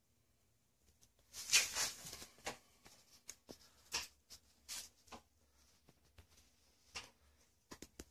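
Paint spray gun hissing in bursts as a coat of primer is sprayed: a longer burst about a second and a half in, then several short ones.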